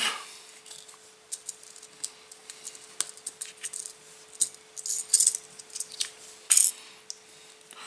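Small clicks and light rattling as tiny crimps are worked out of a little plastic crimp holder by hand, with a sharper click about six and a half seconds in.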